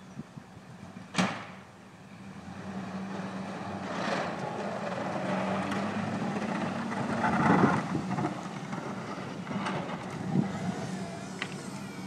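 A sharp knock about a second in, then a plow-equipped pickup truck's engine running as the truck drives forward, growing louder as it comes closer and loudest a little past the middle.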